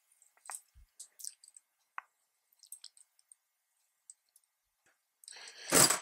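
Faint scattered clicks and light metal ticks of tongue-and-groove pliers gripping and turning the nut that holds a thermocouple in a gas water heater pilot head, tightening it up. A loud breath near the end.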